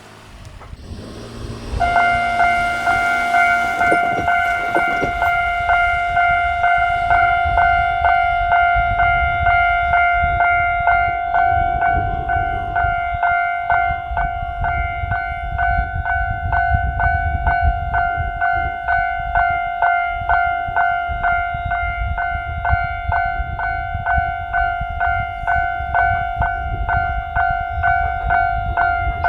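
Japanese railroad crossing alarm starting about two seconds in and then ringing steadily: a fast, evenly repeated electronic 'kan-kan' bell tone. A low rumble runs underneath.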